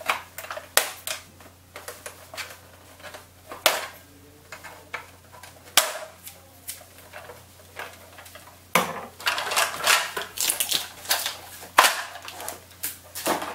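Scissors snipping through plastic cable ties, each cut a sharp snap, then stiff plastic packaging crinkling and rustling for the last few seconds as it is pulled off the pooper scooper.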